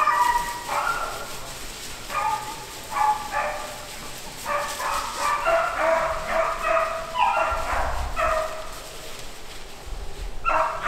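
A pack of hunting beagles baying, many short overlapping cries from several dogs, as they run a rabbit's scent trail. The cries pause briefly near the end, then start again.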